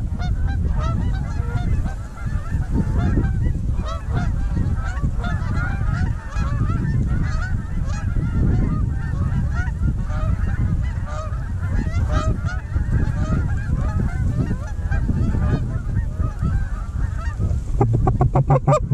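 A large flock of Canada geese honking and cackling, many calls overlapping without pause, with wind buffeting the microphone.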